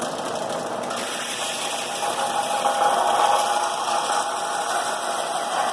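Electric sander running steadily, sanding a hand-forged steel axe head.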